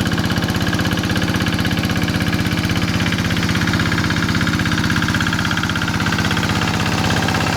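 Single-cylinder Kubota diesel engine of a two-wheel hand tractor running steadily, with an even, rapid chug of firing strokes.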